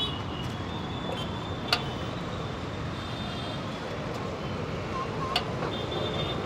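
Steady roadside traffic noise, with two sharp clicks: one a little under two seconds in, the other a little past five seconds.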